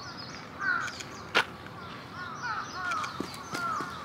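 Birds calling outdoors in short, repeated arching calls, with one sharp click about a second and a half in.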